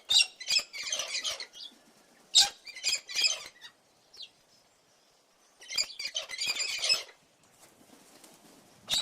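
A bird calling in three bursts of rapid, high chattering notes, each a second or so long, with quiet gaps between.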